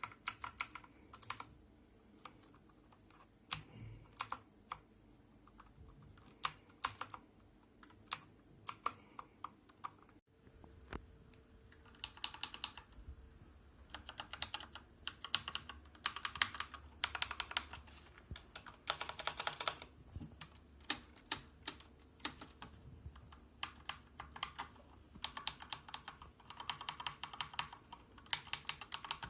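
Keys of a Rampage KB-R81 mechanical keyboard being pressed: single keystrokes spaced out at first, then, after a short break about a third of the way in, fast runs of typing.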